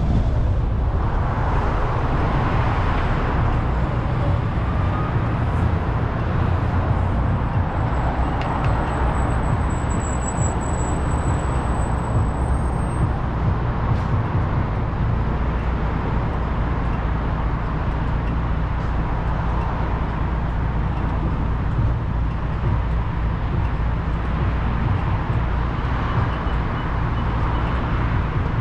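Steady low rumble of road traffic and idling engines, heard from a car stopped in a queue at a red light.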